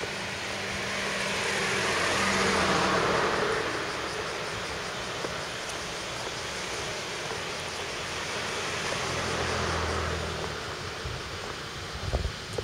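Road traffic: two motor vehicles pass one after the other, each a rush of tyre and engine noise that swells and fades, the first peaking about two to three seconds in and the second near ten seconds. A few low thumps near the end.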